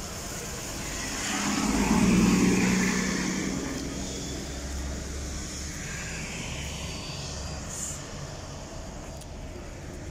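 Articulated city bus passing close by: its engine and tyre noise swell to a peak about two seconds in, then fade over the next couple of seconds, leaving a steady low traffic hum.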